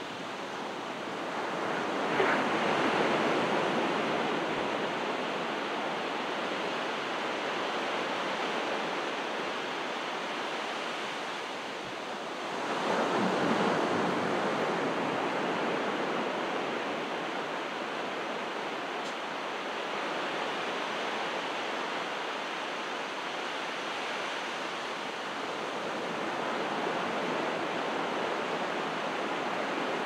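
Calm ocean surf: small waves breaking and washing up on the shore. The sound swells with a breaking wave about two seconds in and again near the middle, with a steady wash between.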